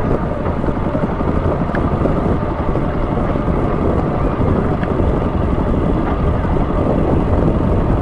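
Small boat's motor running steadily, a continuous low hum.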